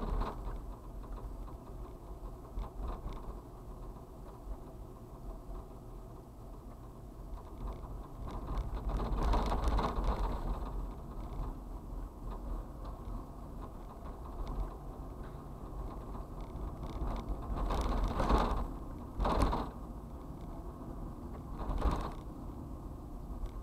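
Road and engine noise heard from inside a moving vehicle's cab, with creaks and rattles from the cab. There are louder swells about nine seconds in and sharp jolts near the end, at around 18, 19 and 22 seconds.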